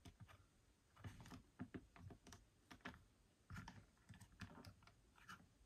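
Faint, scattered small clicks and taps of hard plastic being handled: a Figuarts mini figure being worked onto its display base.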